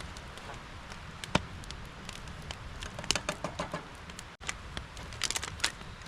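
Irregular sharp clicks and taps over a low steady background rumble, bunching together about three seconds in and again near the end, with a brief dropout a little after four seconds.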